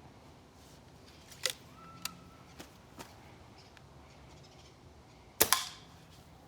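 A few light mechanical clicks and knocks from handling a .22 Stoeger ATAC break-barrel air rifle, then one sharp shot about five seconds in, a quick double crack with a brief ring.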